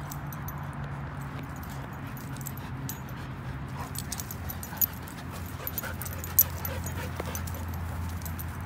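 Dogs play-wrestling, with a low steady dog growl under it and two sharp clicks about halfway through.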